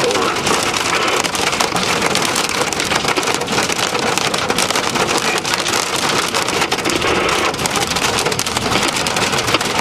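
Hail and heavy rain pelting a moving vehicle's roof and windshield, heard from inside the cab: a dense, steady clatter of countless small impacts.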